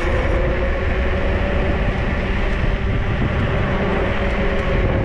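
Electric dirt bike riding along: a steady whine from its 3000 W 48 V motor over a dense low rumble.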